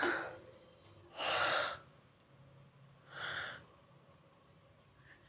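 A person yawning: a short breath at the start, then a long, loud breathy yawn about a second in and a second, softer one about three seconds in.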